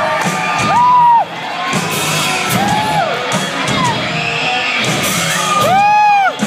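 Music with three loud, high whooping calls, each held about half a second and dropping in pitch at the end, over crowd noise.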